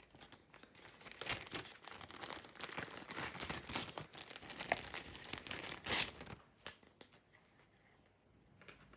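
Clear plastic bags of a diamond painting kit crinkling and rustling as they are handled and opened, in quick crackles, with a sharp crackle about six seconds in; after that only faint handling.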